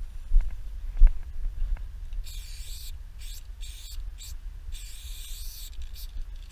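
Aerosol spray paint can hissing in about six short bursts, two of them about a second long, as letters are sprayed. Under it runs a steady low rumble, with two low thumps in the first second.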